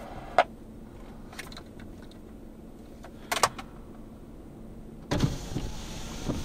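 Steady low background noise inside a vehicle cabin, broken by a few sharp clicks, with a louder rustling rumble starting about five seconds in.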